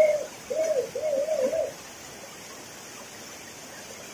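Waterfall pouring steadily into a rocky pool. Over it, during the first second and a half or so, comes a loud wavering hooting call, several rising-and-falling notes.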